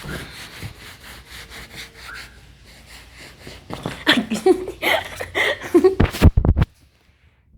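Rustling and handling noise, then a few seconds of loud, breathy vocal bursts, then heavy bumps against the microphone and a sudden drop to near silence.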